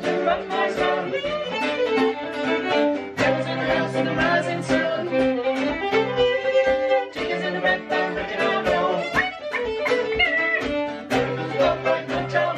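Music with a steady beat, several instruments playing together.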